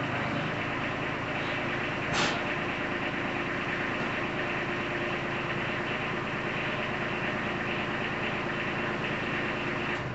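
Kubota B2320 tractor's three-cylinder diesel engine running steadily, with one short sharp click about two seconds in.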